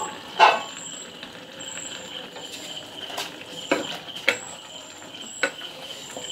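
A serving spoon stirring thick beef curry in an earthenware clay pot, knocking against the pot's rim and sides about five times, with the first knock the loudest.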